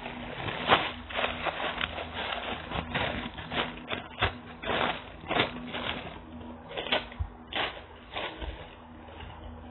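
Plastic packaging crinkling and rustling as a squishy toy is handled and taken out, a run of irregular crackles and clicks that thins out near the end.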